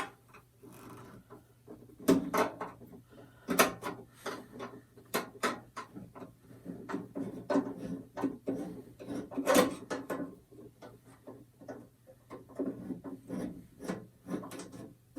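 Hands working on the metal case of an IBM PC Expansion Unit: irregular clicks, knocks and scrapes as screws and the case are handled.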